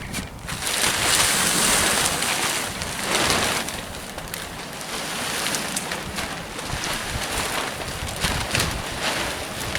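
Plastic silage sheeting rustling and crinkling as it is pulled down and handled, loudest in the first few seconds.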